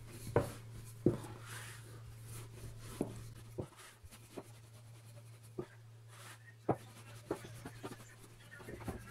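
Wooden rolling pin rolling dough thin on a wooden pastry board: soft rubbing strokes broken by about eight sharp wooden knocks. A steady low hum runs underneath.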